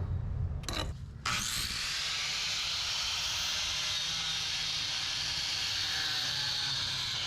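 Music that stops about a second in, then a steady hiss that starts suddenly and carries on unchanged.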